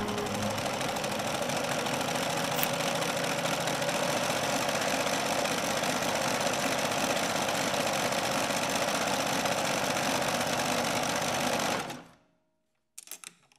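Sewing machine running fast and steadily, then stopping abruptly about twelve seconds in, followed by a few faint clicks.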